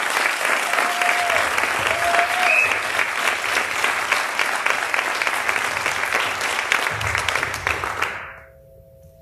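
Audience applauding, many people clapping at once; the applause dies away about eight seconds in.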